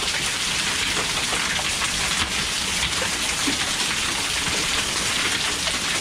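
Heavy rain mixed with hail pouring onto a paved driveway: a steady downpour hiss with a few sharper ticks scattered through it.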